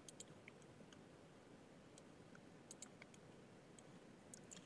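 Faint, scattered clicks of a computer mouse and keyboard over near-silent room tone.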